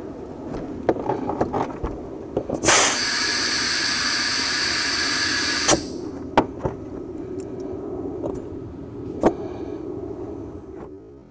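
Compressed air hissing steadily for about three seconds from a tire-inflator chuck pressed onto an inflatable boat's valve as the boat is topped up to low pressure. Clicks of the chuck and valve being handled come before and after, over a steady low hum.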